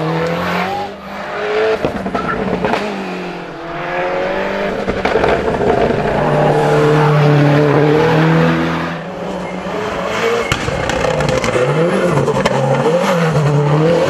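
Ford Fiesta WRC rally car's turbocharged four-cylinder engine driven hard: revving up through the gears and dropping on the lift-offs and shifts, its pitch rising and falling again and again. Near the end it gives two quick rise-and-fall revs in a row.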